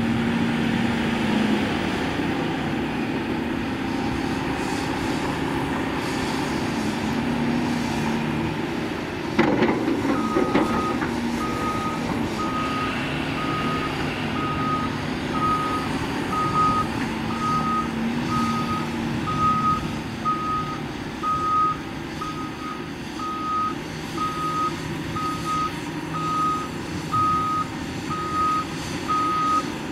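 Diesel engines of Cat 730C articulated dump trucks and a Cat 330F excavator running, with a brief loud clatter about nine seconds in. Then a dump truck's reversing alarm starts beeping steadily, about once a second.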